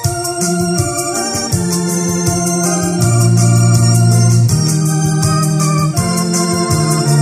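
Electronic arranger keyboard playing a hymn tune in an organ voice. Sustained chords sit over held bass notes that change every second or two, with a steady accompaniment beat ticking along.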